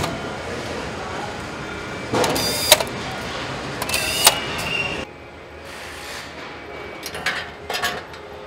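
Assembly-line workshop noise: metal parts and hand tools clicking and knocking over a steady factory hum, with a short high whine about four seconds in. About five seconds in the background steps down to a quieter hum, and a few more metal clicks follow.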